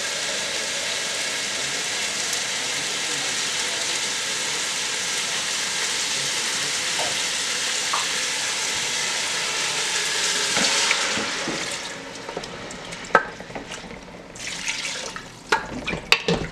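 Kitchen tap running steadily, filling a plastic pitcher with water, then shut off about eleven seconds in. After that come a few short knocks and clinks of the pitcher and wooden spoon at the pot.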